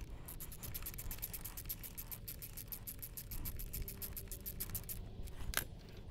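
Paintbrush scrubbing quickly back and forth over the cast-iron cylinder head of a classic Mini A-series engine, about eight strokes a second, stopping about five seconds in; a single sharp click follows.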